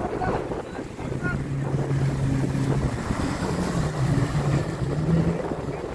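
Jet ski engine running as it passes close by. Its pitch holds steady, then rises and wavers past the middle, as the throttle changes. Wind buffets the microphone throughout.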